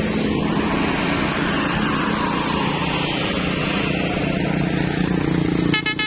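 Tour bus's diesel engine running as it moves slowly past close by, a steady low rumble. In the last moment a multi-tone telolet horn starts playing a stepped melody.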